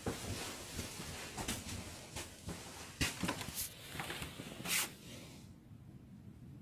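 Irregular knocks and clatters in a small room, which die down about five seconds in.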